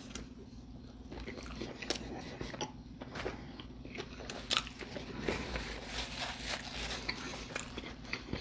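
Close-up chewing and biting of a chili cheese dog on a soft bun: irregular wet clicks and smacks of a mouth working food, over a faint steady hum.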